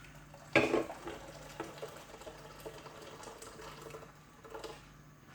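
Hot water poured from a jug into a cooking pot: a knock about half a second in, then a steady pour that tails off near the end.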